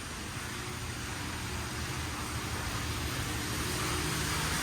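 Steady background hiss with a low hum underneath, slowly getting louder.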